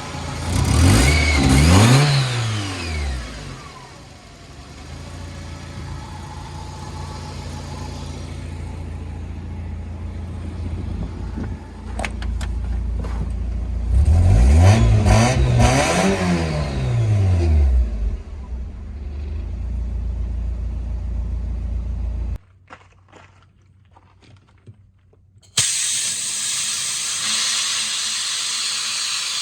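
Mazda Miata's swapped-in four-cylinder engine idling and blipped twice, each rev rising and falling back to idle, and sounding healthy. About three-quarters of the way through the engine sound cuts off suddenly; a few seconds later a steady hiss starts.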